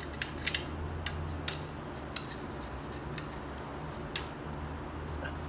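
A small brush scrubbing a motorcycle's rear disc brake caliper to clean off brake dust, its handle and bristles knocking the metal in a scatter of light, irregular clicks. A low steady hum runs underneath.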